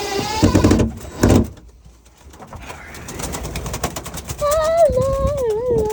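Pet pigeons in a loft: a couple of heavy thumps near the start, a stretch of rapid fluttering clicks, then a long wavering coo from about two-thirds of the way in.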